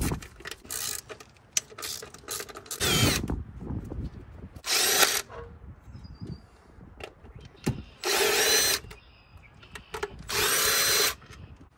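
Cordless power driver running out throttle-body bolts in four short bursts of under a second each, its motor whine rising in pitch within each run. Small clicks and clinks of the tool and bolts come between the bursts.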